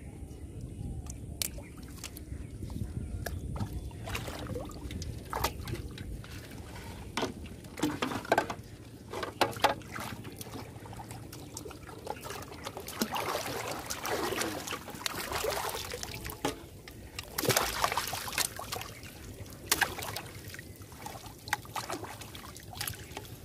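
Pond water sloshing, splashing and trickling as plastic-bottle fish traps are lifted out and handled, with scattered sharp knocks of bottles dropped into a floating steel basin.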